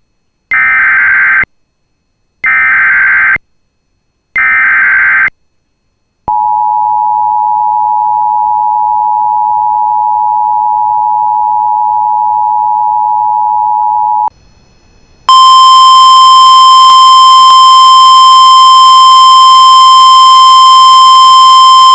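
Emergency Alert System tones. First come three bursts of about a second each, the warbling digital SAME header. Then the two-tone attention signal holds steady for about eight seconds. After a short gap, a loud, steady single-pitch weather radio warning tone starts and runs on, signalling that a severe thunderstorm warning is about to be read.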